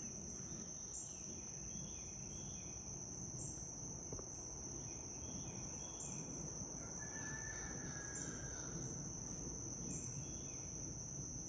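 Insects trilling in one steady, high-pitched drone that swells slightly about once a second.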